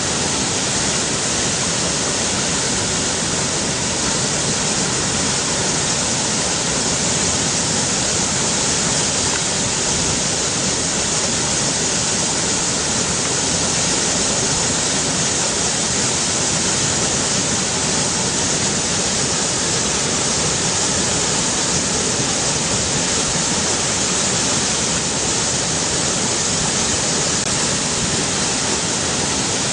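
River water rushing in a steady, unbroken stream, with a hissing, high-leaning sound.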